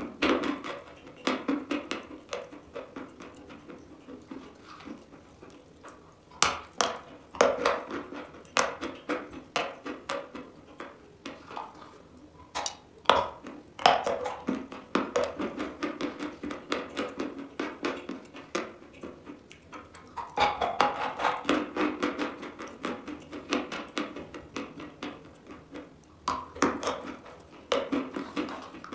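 A bar of chalk coated in black cream being bitten and chewed: crisp, irregular crunching in clusters, with quieter stretches between.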